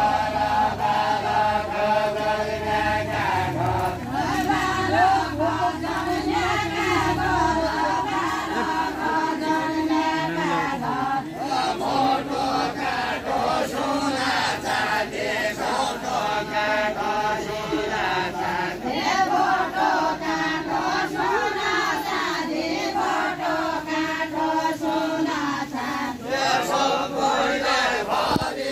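A Deuda folk song of far-western Nepal, sung by a group of men and women dancing hand in hand. Many voices chant in unison, unaccompanied.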